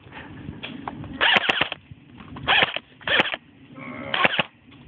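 Airsoft gun firing four short bursts of rapid shots, about a second apart.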